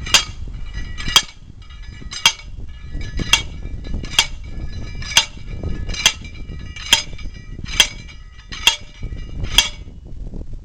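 Hand post driver repeatedly dropped onto a metal ground peg, driving it into roadside soil: eleven sharp, ringing metal clangs, about one a second.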